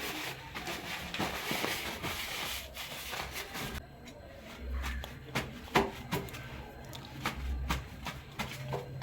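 Household items being handled: rustling for the first few seconds, then a series of light clicks and knocks as things are set down.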